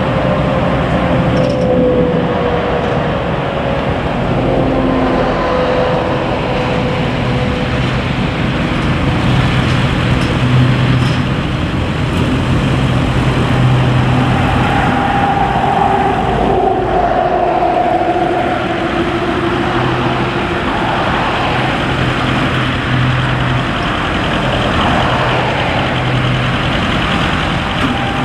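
Narrow-gauge peat railway train and works machinery: diesel engines running steadily under a continuous rumble, with a wavering whine that drifts slowly up and down in pitch.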